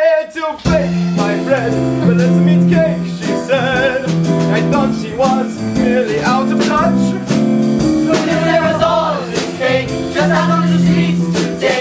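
Live musical-theatre band music led by a keyboard, with sharp percussive hits and voices singing at times over it.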